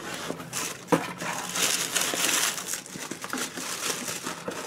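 Tissue paper crinkling and rustling as it is handled in an opened box, with a sharp click about a second in.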